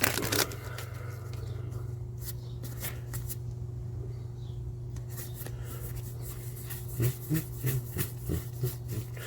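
Trading cards being handled and sorted by hand, with soft card rustles and light taps in a quick cluster near the end, over a steady low electrical hum.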